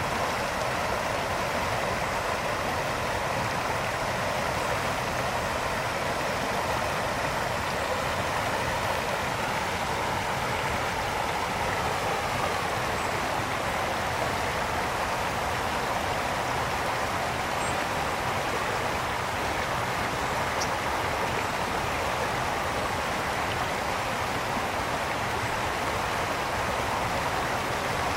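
A brook's water flowing and splashing as a steady, even rush.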